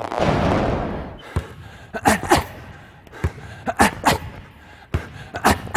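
A basketball dribbled hard on a court floor, about eight sharp bounces with several in quick pairs, as in double crossover dribbles taken up the floor. It opens with a second-long rush of noise.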